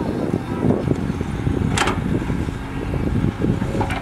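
Heavy diesel engines of a Cat 320D excavator and a dump truck running steadily, with one sharp knock a little under two seconds in.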